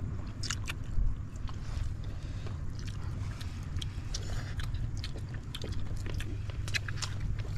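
People eating with their hands close to the microphone: chewing and lip smacks, with many short clicks and small scrapes of fingers on plates. A steady low rumble runs underneath.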